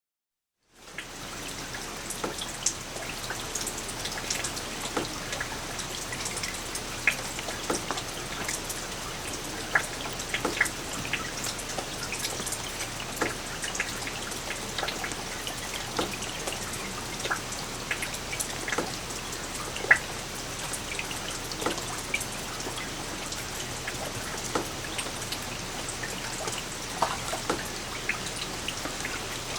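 Light rain falling steadily, with a soft hiss and many separate drops tapping and plinking close by.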